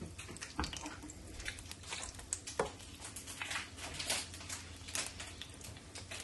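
Battered corn dogs deep-frying in hot oil: a steady hiss with irregular small crackles and pops.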